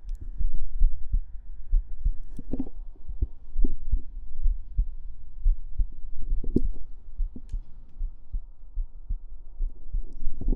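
A human heartbeat picked up close to the chest: a steady run of low, soft thumps, with a couple of brief brighter knocks about a quarter and two thirds of the way in.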